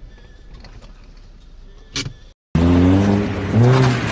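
Faint road noise in a car, then after a cut about two and a half seconds in, a vintage open roadster's engine running hard at high revs, its pitch jumping up about a second later as it accelerates.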